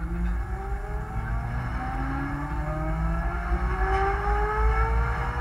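Geec eco-marathon car accelerating from a standstill: its drivetrain whine, several thin tones, climbs steadily in pitch over a constant low rumble of road and wind noise at the onboard camera.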